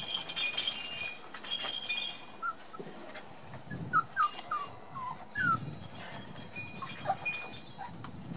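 One-month-old Border Collie puppies making short, high squeaks and whimpers while they play, several in quick succession in the middle, with a few light knocks.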